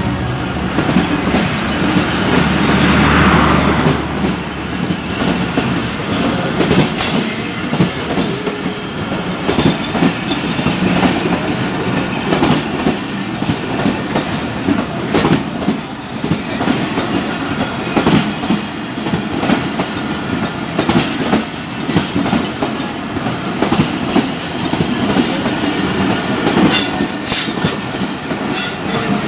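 A passenger train's coaches roll past at close range on the next track, their wheels clacking over the rail joints in a steady run of clicks. A low diesel engine drone from the locomotive that has just passed fades out in the first few seconds.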